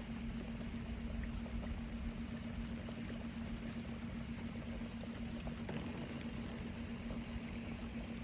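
A boat motor running with a steady low hum, under a light hiss and patter of rain.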